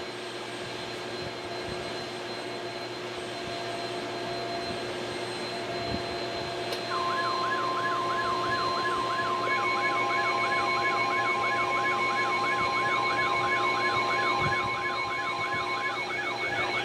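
A steady rushing noise builds slowly, then about seven seconds in an electronic siren tone starts warbling quickly, about three times a second, together with a steady beep tone. A few seconds later rapid pulsing beeps and a second, higher warble join in, layering into an alarm-like mix.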